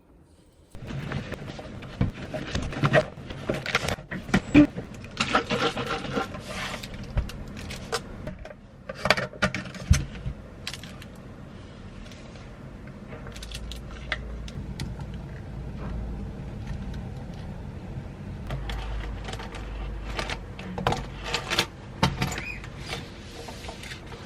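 Objects being handled: a run of irregular clinks, knocks and scraping, busiest in the first ten seconds, over a low steady rumble in the second half.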